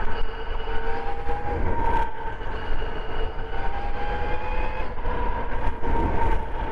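Electric dirt bike motor running at speed on a 72-volt conversion, giving a steady whine that drifts a little up and down in pitch. Heavy wind rumble on the microphone runs under it.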